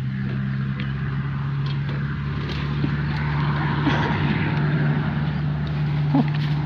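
Motorcycle engine running at a steady speed: an even low hum under a haze of road and wind noise.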